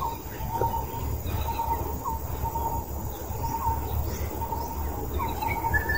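Outdoor forest ambience: birds chirping, with short calls repeating every second or so, over a steady low rumble.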